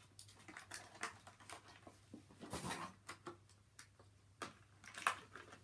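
Faint rustling, scraping and crinkling of a small cardboard toy box and its clear plastic tray being opened and handled, with a few louder crinkles about halfway through and near the end.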